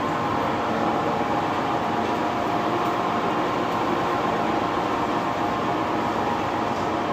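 Cold press oil expeller running steadily: a continuous mechanical drone with a few constant tones, holding the same level throughout.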